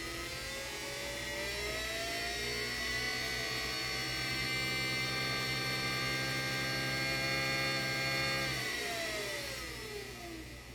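3D-printed axial-flux brushless DC motor on an Arduino controller, whining as it spins up and then running at a steady pitch with a low electrical hum. Near the end the hum stops and the whine falls steadily in pitch as the motor spins down.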